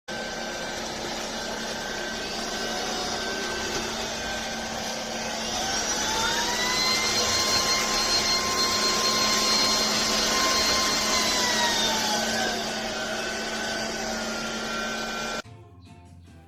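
Vistefly V15s Max cordless stick vacuum running. Its motor whine rises in pitch and loudness about a third of the way in, holds there, and then drops back, with the power stepping up and down. The sound cuts off abruptly shortly before the end.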